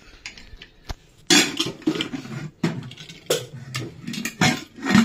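Metal pots and kitchen utensils clattering and knocking against each other and the counter: a string of knocks and clatters, the first loud one just over a second in.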